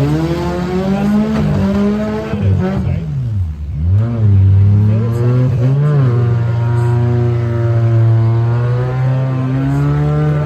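Compact demolition-derby car engines revving, their pitch rising and falling as the cars accelerate and back off. The engine note drops away about three to four seconds in, picks up again, and runs steadier through the second half.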